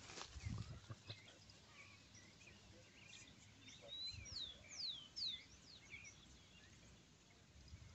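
Faint birdsong over a quiet background: many short whistled chirps, several sliding down in pitch, thickest a few seconds in, with a few soft low rustles.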